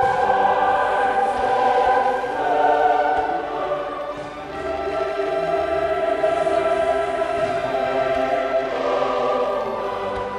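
Classical music: a choir singing held chords over an orchestra.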